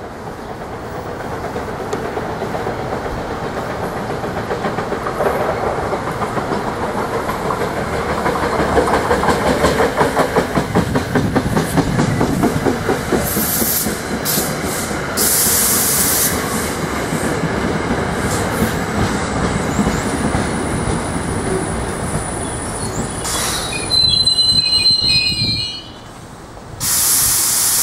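NJ Transit electric push-pull commuter train passing at speed: the rumble and rush of the coaches build up, with a rapid rhythmic clickety-clack of the wheels over rail joints about a third of the way in. Near the end there is a brief high whine, a sudden drop, and then a loud hiss.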